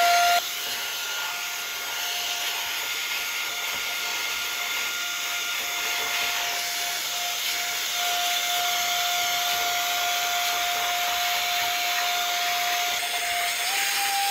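Cordless electric air duster running: a steady high motor whine over a hiss of rushing air as it blows dust out of a computer case. The loudness drops a little just after the start, and near the end the whine steps up in pitch.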